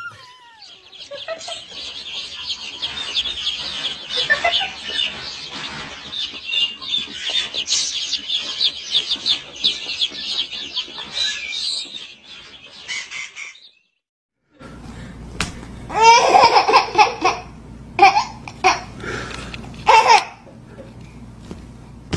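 Many baby chicks peeping at once, a dense high chirping that stops after about thirteen seconds. After a short gap, a baby laughs in loud bursts.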